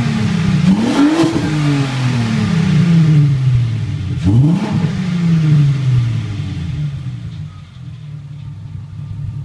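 Volkswagen Mk4 GTI's VR6 engine revved twice, each rise in pitch quick and each fall back slow, then settling to idle near the end. It is heard through a near-stock exhaust with an aftermarket muffler can at the back.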